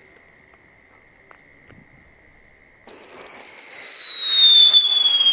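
A 'mouse' whistling firecracker (pháo chuột) taped to a stick as a rocket ignites about three seconds in. It gives a loud, shrill whistle that glides slowly down in pitch over a fizzing hiss. It burns on the ground instead of lifting off, which the owner puts down to too short a stick.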